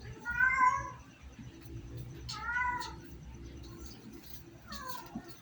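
Kitten meowing three times, short high calls about two seconds apart, the last one falling in pitch.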